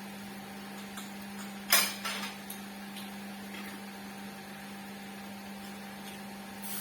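A sharp clatter of utensils or tableware against a grill pan or dishes about 1.7 seconds in, followed by a few lighter clinks, over a steady low electric hum.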